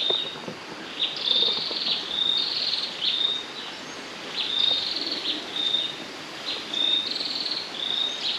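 A repeated high-pitched animal call in the jungle, alternating a buzzy, pulsing phrase with a clear steady note, roughly once a second, over a soft background hiss.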